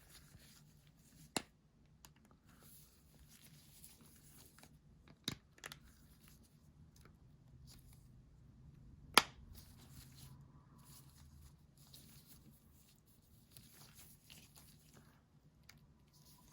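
Faint handling rustle with a few sharp clicks, the loudest about nine seconds in: an iPhone 7 Plus display assembly being pressed by hand back into its frame and clicking into place.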